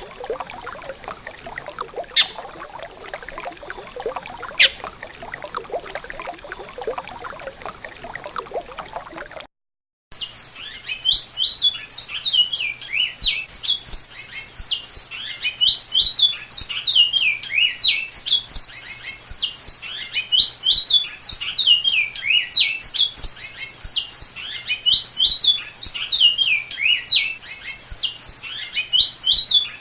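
Running water for about the first nine seconds, with a few sharp clicks. After a brief break, a bicudo (great-billed seed-finch) starts singing, a continuous rapid run of short, high whistled notes that goes on to the end.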